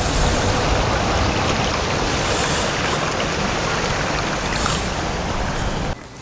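Shallow, rocky stream running over stones: a steady rushing and splashing that cuts off abruptly near the end.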